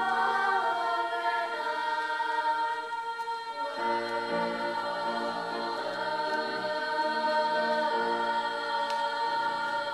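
Girls' chorus singing a song with piano accompaniment, held notes changing every second or so.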